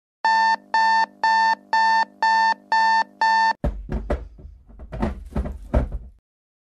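Electronic alarm clock beeping: seven even, high beeps about two a second. The beeping cuts off and is followed by rustling and a few thumps.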